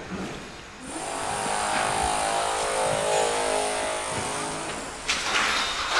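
Engine of roadworks machinery running at steady high revs with a high whine over it. About five seconds in, a harsher, noisier clatter starts.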